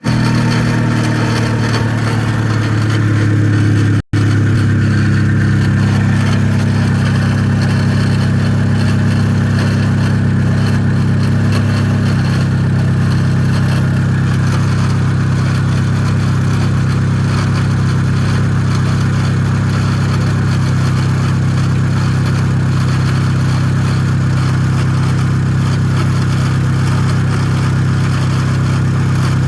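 Car engine idling just after a cold start, running with the abnormal noise the owner is asking about. The sound cuts out for an instant about four seconds in, and the idle settles slightly lower about twelve seconds in.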